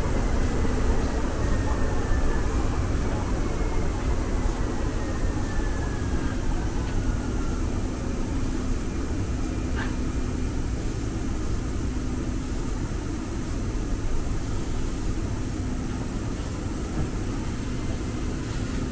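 Muni Metro Siemens LRV4 light rail car running through the subway tunnel, heard from inside the car: a steady low rumble of wheels on rail, with a faint whine that falls in pitch over the first several seconds as the train slows toward a station. A single small click about halfway through.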